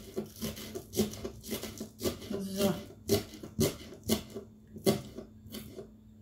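Kitchen knife chopping spring onions on a wooden cutting board: steady knocks of the blade on the board, about two a second, stopping near the end.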